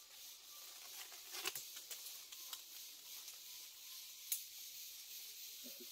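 Quiet outdoor ambience: a steady high hiss, with a few light, sharp clicks, the loudest about four seconds in.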